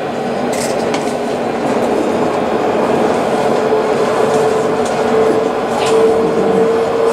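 Alstom Citadis tram running, heard from inside: the traction motors whine on one steady tone over continuous rolling noise from the rails, with a few faint clicks. The whine edges higher and louder in the second half as the tram picks up speed.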